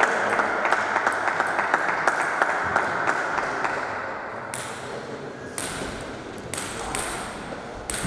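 Table tennis ball clicking sharply and evenly, about three times a second, for a few seconds, then stopping. A few scattered duller knocks follow.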